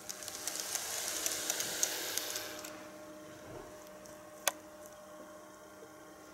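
KATO N-scale model of a Tobu 50070-series train running on its track: a rolling noise with quick small clicks swells and fades over the first two to three seconds. A single sharp click comes about halfway through, over a faint steady hum.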